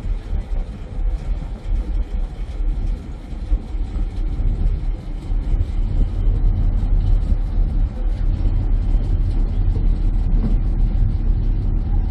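Low, steady rumble of a harbour ferry under way, heard from its open outer deck with wind buffeting the microphone; it grows louder about halfway through.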